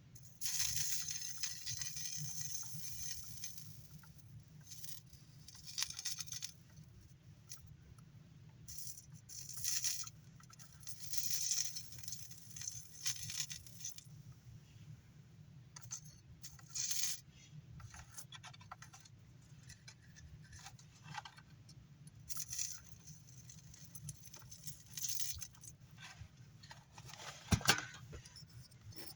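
Rosin flux sizzling in repeated short hissing bursts as a soldering iron heats a joint, over a steady low hum. A sharp click comes near the end.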